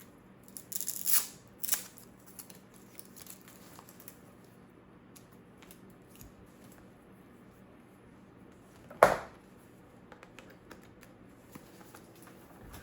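Handling noises: a short scratchy rustle like packaging or plastic film being crinkled about a second in, scattered light clicks, and a single sharp knock about nine seconds in.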